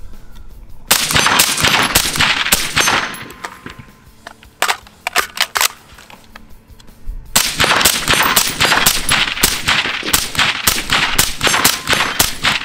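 Suppressed IWI Tavor X95 rifle with a Gemtech suppressor fired rapidly as fast as the trigger is pulled, in two long strings of shots with a few single shots between them.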